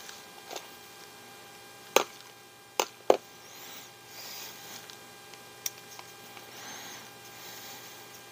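Sharp clicks and taps of small plastic RC axle parts and hand tools being handled and set down, three loudest about two to three seconds in, with soft rustling of handling between. A steady electrical hum sits underneath.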